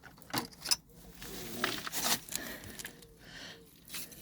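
Handling noises: a few sharp clicks and light scraping.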